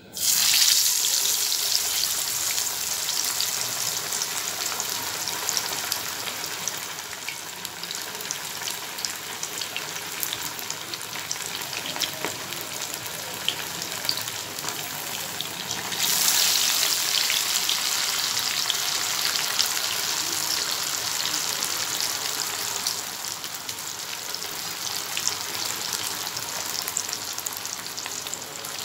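Battered fish pieces dropped into hot oil and deep-frying: a sudden loud burst of sizzling as they go in, settling into a steady crackling sizzle that gets louder again a little past halfway.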